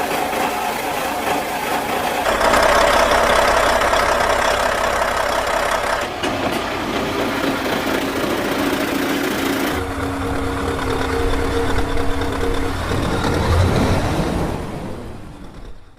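Truck diesel engines running, heard as a run of separate clips: the engine sound changes abruptly about two, six and ten seconds in, and fades out at the end.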